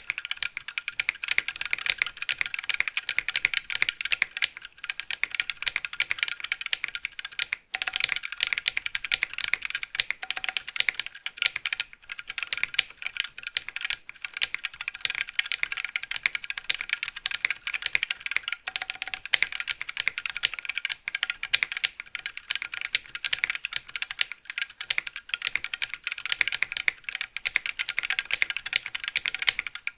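Continuous fast typing on a Brutal 60 mechanical keyboard fitted with stock KK Lightwave v2 linear switches, a dense stream of key clicks with a brief pause about seven and a half seconds in.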